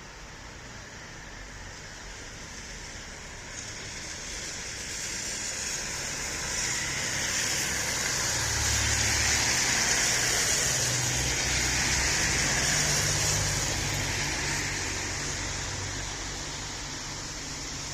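Road traffic: a vehicle's engine hum and tyre hiss swell as it approaches, are loudest about ten seconds in, then fade as it passes, over a steady background of traffic noise.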